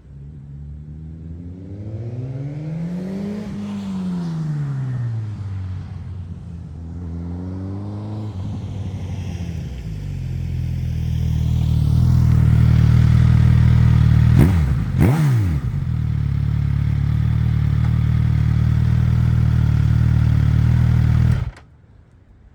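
Suzuki GSX-S1000's inline-four through an SC-Project aftermarket exhaust. The pitch rises and falls twice in the first several seconds as the bike is ridden and revved. It then runs loud and steady up close, with a quick sharp throttle blip about two-thirds of the way in, before cutting off abruptly near the end.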